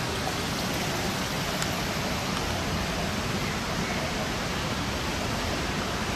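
Steady rushing noise of falling water, even and unbroken throughout.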